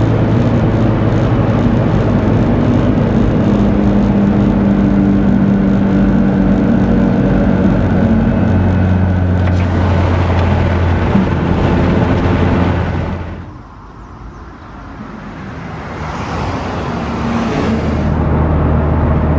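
In-cabin engine drone and road noise from a big-turbo Mitsubishi Lancer Evolution X's turbocharged 2.0-litre four-cylinder, cruising steadily on the highway. The sound dips away sharply about two-thirds of the way in, then builds back up.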